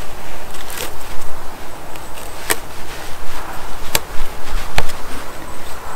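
Cord being wound and pulled tight around wooden stakes lashed to a log, with rustling, a low rumble underneath and four sharp clicks.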